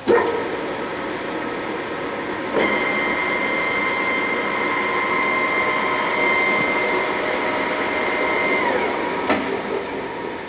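1993 Summit 20" x 80" gap bed engine lathe running under power: a clunk as it starts, then a steady gear whine from the headstock that steps up about two and a half seconds in. Near nine seconds the whine falls in pitch as the spindle winds down, followed by another clunk.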